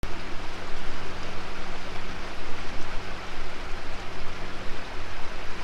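Outboard motor pushing a small houseboat along at steady cruising speed: a constant low hum under a steady rushing noise.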